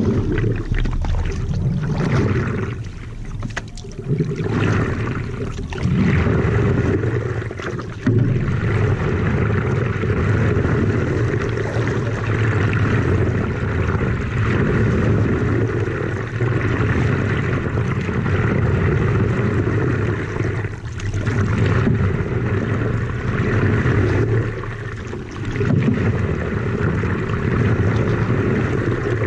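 Water rushing and splashing along the nose of a stand-up paddleboard as it is paddled over calm sea, a low rush that swells and eases every few seconds with the paddle strokes.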